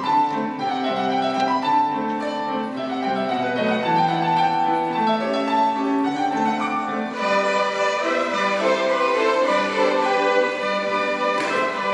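Violin ensemble playing a melody with piano accompaniment; the sound grows fuller about seven seconds in.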